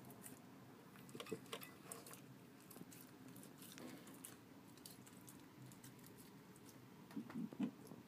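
Small yorkie-schnauzer mix dog eating from a stainless steel bowl: faint chewing and scattered clicks, with a few louder short sounds near the end.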